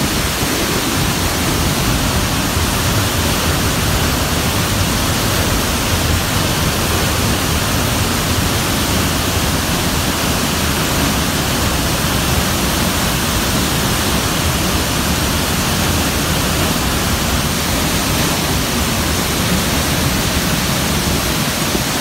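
Waterfall heard close to its foot: a loud, steady rush of falling water pounding into the pool, unchanging throughout.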